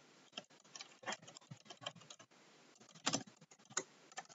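Typing on a computer keyboard: a run of irregular keystrokes, with one louder key press about three seconds in.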